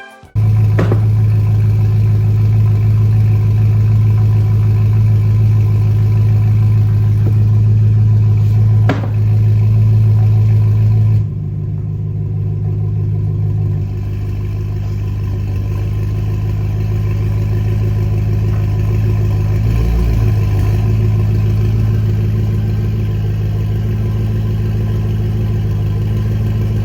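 BMW F10 M5 Competition's twin-turbo V8 running at a steady idle, a smooth even drone. It drops a little in level about 11 seconds in and then holds steady.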